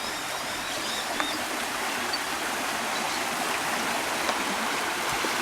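Creek running after heavy rain: a steady rush of flowing water.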